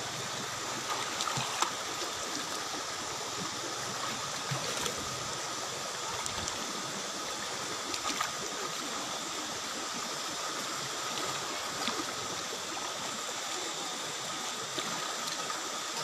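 Shallow water rushing steadily over a flat rock cascade, with a few small splashes here and there.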